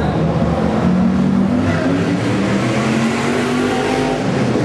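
Historic Formula 1 race car engines running at high revs, their pitch shifting up and down with throttle and gear changes.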